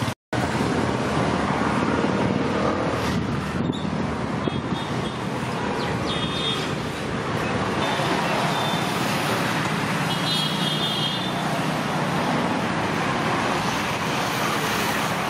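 Steady road traffic noise from a busy street, with short high-pitched vehicle horn toots about five to seven seconds in and again about ten seconds in.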